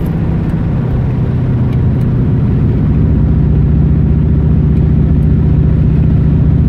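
The 1967 Pontiac Firebird's 400 cubic-inch V8 running at a steady cruise, heard from inside the cabin. About halfway through, the exhaust grows louder as the exhaust cutouts open.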